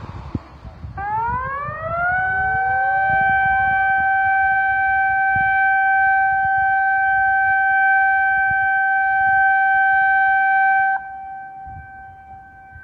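Outdoor tsunami warning siren sounding after a tsunami advisory: a tone that rises in pitch for about a second, holds steady for about nine seconds and cuts off abruptly, with fainter, delayed copies of the rise from sirens further off.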